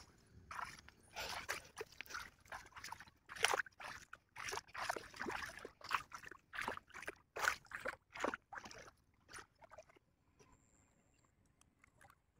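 Shallow pond water splashing and sloshing in short, irregular bursts as a man wades and works a fishing net and its wooden pole in the water. The splashing stops about two seconds before the end.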